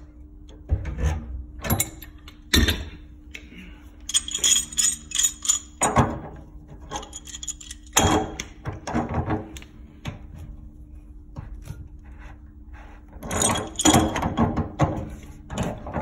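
Metal wrench clinking and knocking against a water heater's drain valve fittings as the stuck valve is worked loose, in scattered knocks with brief metallic ringing. A faint steady low hum underneath stops near the end.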